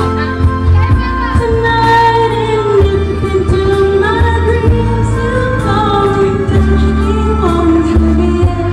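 A singer singing a melody into a handheld microphone over amplified backing music with held bass notes.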